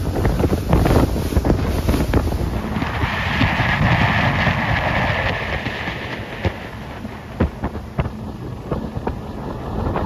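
Boat running at speed across open water, with wind buffeting the microphone, a steady rumble and rushing water along the hull. A louder hiss swells in the middle and then fades.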